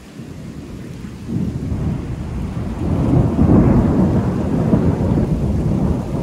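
Thunder rumbling and rolling, swelling from about a second in to its loudest around the middle and easing near the end, with rain falling steadily underneath.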